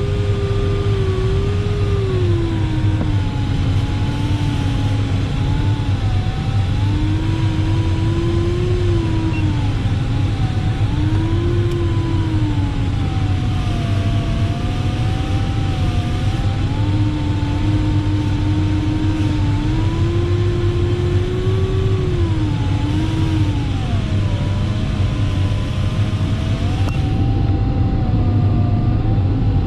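A glider variometer's continuous audio tone, its pitch wandering slowly up and down with the sailplane's rate of climb and sink on final approach. Under it is a steady rush of airflow in the cockpit.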